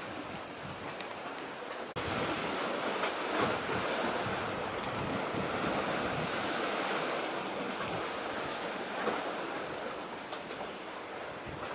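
Wind rushing on the microphone over the wash of the sea, a steady noise with no engine or horn standing out. About two seconds in it cuts abruptly and comes back louder.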